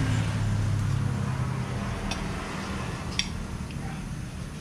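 A motor vehicle's engine drone, steady and low, fading gradually as it moves off along the road. Two short sharp clinks come about two and three seconds in.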